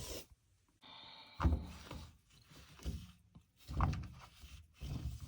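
Handling noise: four dull thunks a second or so apart, with a brief rubbing sound just before the first, as parts are moved about and set down.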